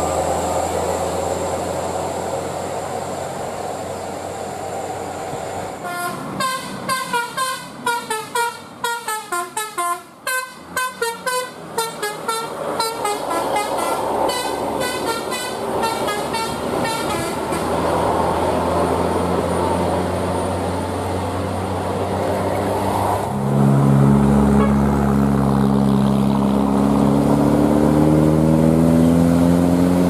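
Bus's telolet basuri musical horn plays a quick melody of short chiming notes over the rumble of the bus engine. About seven seconds before the end a big bus engine comes in loud, its pitch rising slowly as it pulls away.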